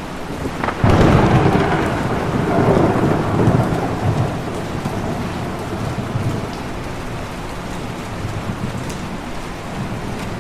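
Box fan running: a continuous rush of air with uneven low rumbling, which jumps louder about a second in and then slowly eases off.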